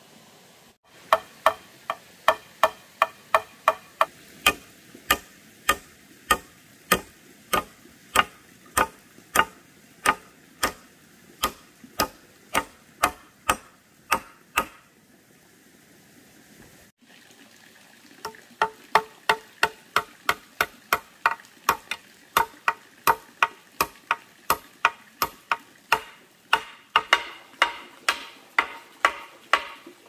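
Hammer blows on wood, about two to three a second, each ringing briefly, typical of driving nails into a wooden box. The blows come in two long runs with a pause of a few seconds in the middle.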